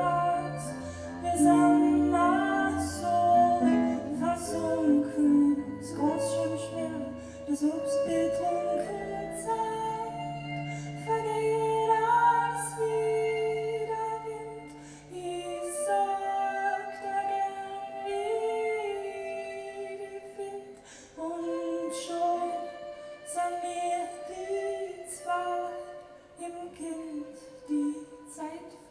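Live acoustic band music: a woman singing a melody over instrumental accompaniment with light percussion. A low bass line drops out a little past halfway.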